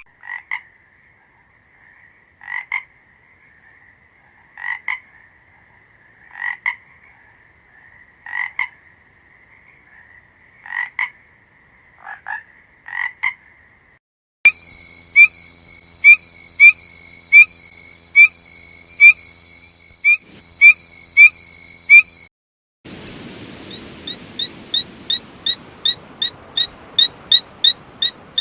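Frogs croaking in three recordings cut together. First, croaks about every two seconds over a steady trill; from about halfway, evenly spaced calls about one and a half a second over a steady high buzz; and near the end, a quick run of short calls about three a second.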